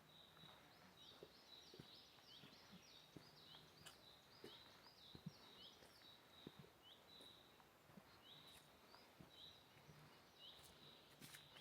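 Faint bird calls: a long, even series of short, high chirps repeated several times a second, with soft scattered clicks underneath.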